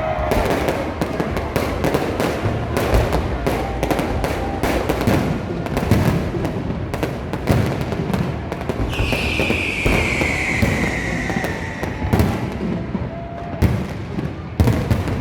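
Fireworks going off in a rapid, irregular string of crackles and bangs, with a falling whistle about nine seconds in.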